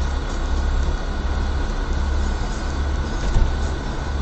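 Steady low rumble of a car driving, heard from inside the car: road and engine noise, even throughout.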